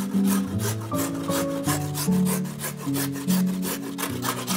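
A carrot being grated on a stainless steel box grater: quick, regular rasping strokes of the carrot against the cutting holes, over background music.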